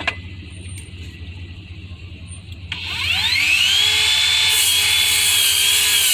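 Bauer brushless 7-1/4-inch miter saw spinning up: a whine that rises quickly in pitch about three seconds in, then holds steady at full speed. A sharp click sounds at the very start.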